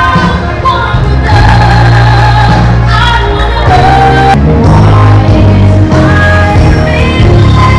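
A woman singing a slow pop-style song into a microphone over a loud backing track with heavy bass, amplified through a sound system.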